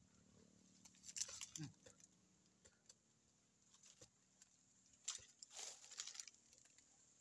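Faint scraping and crackling of tree bark being gnawed and torn with teeth, in two short bouts about four seconds apart, with a brief falling grunt during the first.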